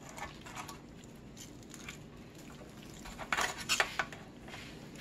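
A utensil clinking and scraping against a slotted metal broiler pan as chicken leg quarters are turned over, with a short cluster of sharper clicks a little past the middle.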